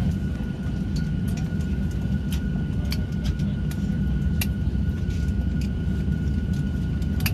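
Steady low rumble of vehicles and a jet airliner on an airport apron, with a thin steady whine above it and a few faint clicks.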